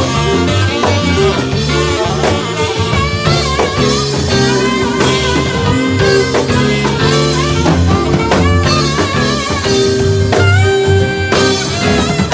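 A live blues band playing: electric guitar over a drum kit, with a saxophone, with notes held and bent with vibrato.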